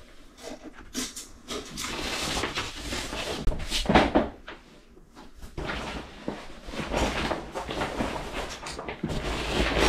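Fabric shower curtain being handled on its rod: rustling cloth with metal curtain rings clicking and sliding along the rod, loudest about four seconds in.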